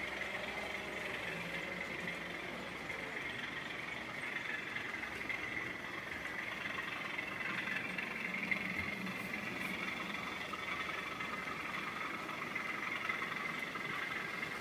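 Model railway locomotives running on a club layout: a steady whir of small motors and wheels on the track.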